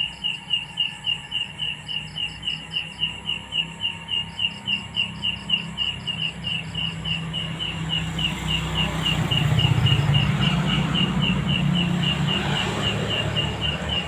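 A night insect chirping in a steady, even rhythm, about three short high chirps a second: the 'strange sound' around the jackfruit tree, which the searcher wonders may be a hidden grasshopper. A low rumbling noise rises under it about eight seconds in and eases off.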